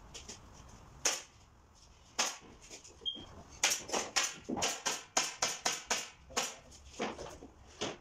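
Pneumatic nail gun firing, driving fasteners through roofing shingles into a wooden roof: a single sharp shot about a second in, a couple more, then a rapid run of shots, several a second, through the second half.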